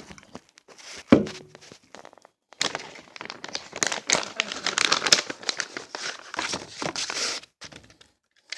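Crinkling and rustling of a tobacco pouch and paper handled while a cigarette is made by hand: one knock about a second in, then a dense crinkling for about five seconds.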